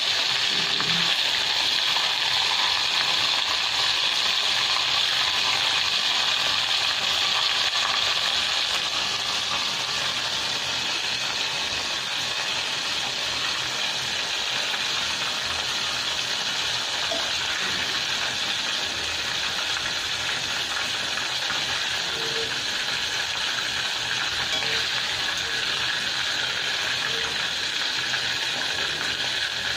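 Chicken liver deep-frying in hot oil: a steady sizzling hiss, easing a little in loudness about ten seconds in.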